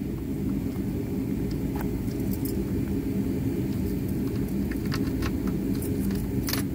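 An engine running steadily underneath light metallic clinks and rattles of tools being handled in an aluminum truck toolbox, with a sharper clank just before the end.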